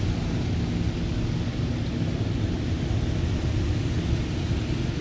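Spray from a Kondor touchless automatic car wash hitting a minivan, heard from inside the cabin as a steady low rumble with a fainter hiss.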